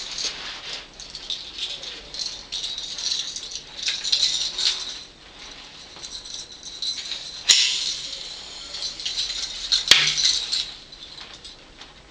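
Metal fittings and chain links of a homemade folding coat-hanger prop rattling and clicking as its black rods are unfolded and fitted together. Two sharper clicks, about two and a half seconds apart, come in the second half.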